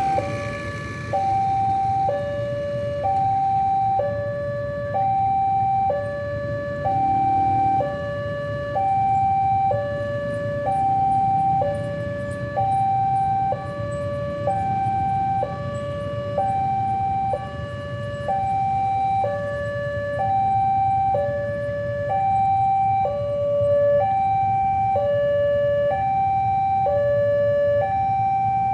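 Railway level-crossing warning alarm sounding a steady two-tone high-low signal, about one pair every two seconds, while the barrier is down for an approaching train. A low rumble of waiting motorcycle traffic runs underneath.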